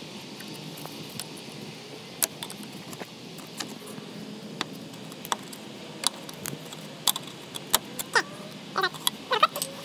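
Metal hand tools clicking and clinking against car parts, single sharp ticks at first and then more often, with a few short squeaks near the end.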